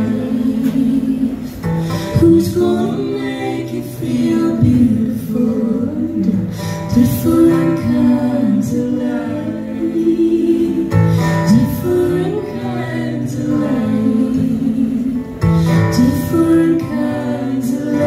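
Live acoustic song: a woman sings lead over her own strummed acoustic guitar, with other women's voices singing along in harmony.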